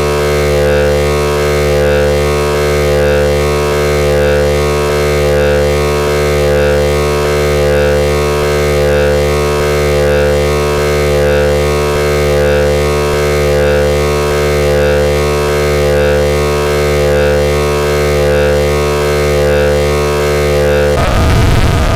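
Eurorack modular synth patch built around the Triple Cap Chaos chaotic oscillator: a dense, steady drone of several held tones, swelling and fading about once a second. About a second before the end it cuts abruptly to harsh, chaotic noise.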